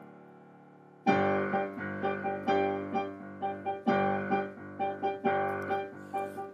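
Piano accompaniment of a choral piece: a chord dies away to near quiet, then about a second in the piano comes back in with short, repeated chords and notes struck a few times a second, leading into the choir's entry.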